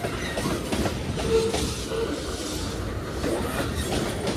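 Freight train cars rolling past, their wheels clacking steadily over the rail joints, with a couple of short squeals from the wheels.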